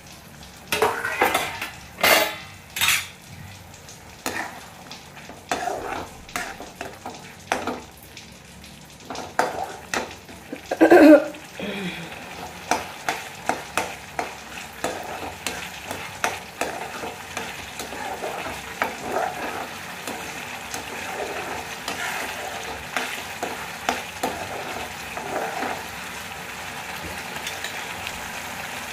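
A slotted spatula stirring and scraping peas and masala around a kadhai in repeated strokes, over the steady sizzle of the masala frying down. There is one loud clatter about eleven seconds in.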